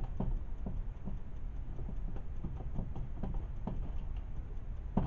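Faint irregular clicks and taps, a few a second, over a low steady rumble, with one sharper click near the end.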